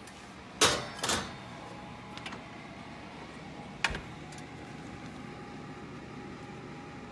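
Metal loaf pan set onto the wire oven rack, clattering twice as it scrapes in, then the oven door pushed shut with a single knock a little under four seconds in. A faint steady hum follows.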